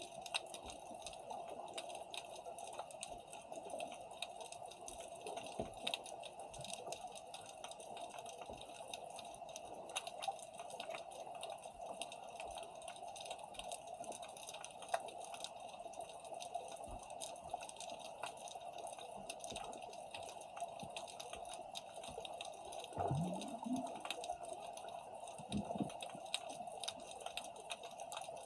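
Underwater ambience picked up by a submerged camera: a steady hum with constant faint crackling and clicks. Near the end comes a short rising low sound and a few louder knocks.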